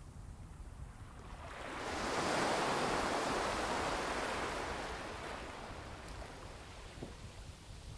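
Small sea wave breaking and washing up a sandy beach: the hiss of the surf swells about two seconds in, peaks, then slowly fades as the water draws back.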